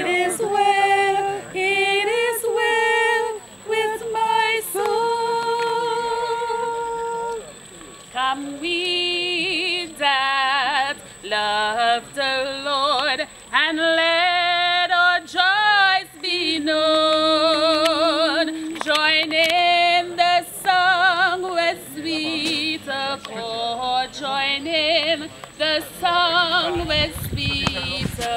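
A woman singing solo in a high voice, with long held notes and a wide, wavering vibrato, phrase after phrase with short breaths between.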